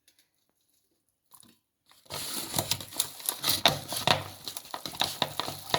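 Food grinder working a batch of steamed dried figs and garlic, starting about two seconds in as a dense, irregular run of clicks and crackles.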